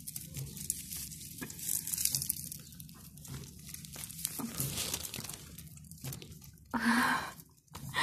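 Crunching and crackling of damp soil and roots as a potato plant's root ball is pulled from a grow bag and handled, soil crumbling off it. A short voice-like sound comes near the end.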